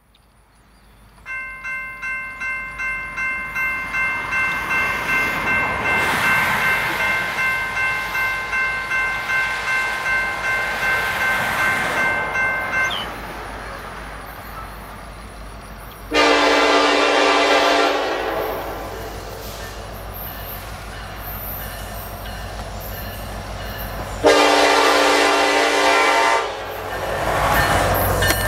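Railroad grade-crossing bell ringing about twice a second, stopping about 13 seconds in. Then an approaching diesel freight locomotive sounds two long air-horn blasts of about two seconds each. The train's rumble grows louder near the end.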